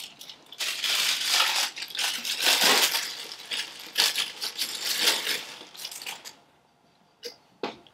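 Penetrating oil sprayed from an aerosol can in a series of hissing bursts, applied to stuck dynamo field-coil screws to loosen them. Two light knocks follow near the end.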